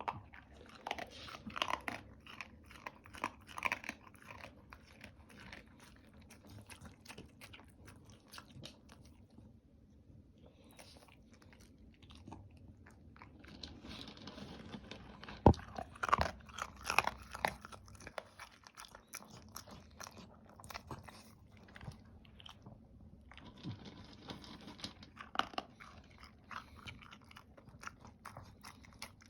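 A dog crunching and chewing dry food in irregular bursts of crisp crunches, with a quieter spell about a third of the way in and a single sharp knock about halfway.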